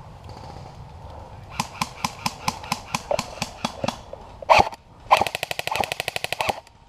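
Electric airsoft rifle firing: a string of single shots at about five a second, then, after one loud short sound, a full-auto burst of rapid shots lasting about a second and a half.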